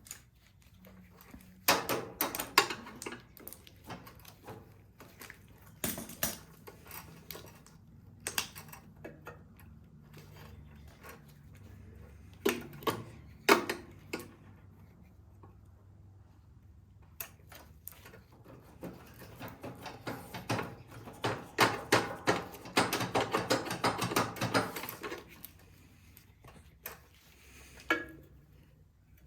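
Hand tools clicking and clinking on metal fittings in scattered sharp strokes, with a longer run of quick clicks in the second half, while working the clamp off a snowblower carburetor's fuel line.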